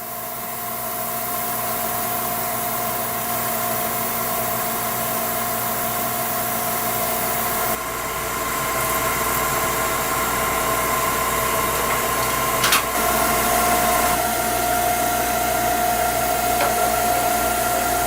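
A machine running steadily with a high whine, growing slightly louder and changing pitch twice, with one sharp click partway through.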